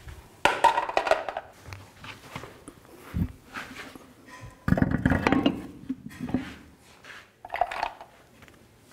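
Metallic clinks as a lug nut is spun off a wheel stud. Then a thump and a longer scraping rumble as a heavy steel truck wheel and tyre are hung onto the hub studs, with a few more clinks near the end.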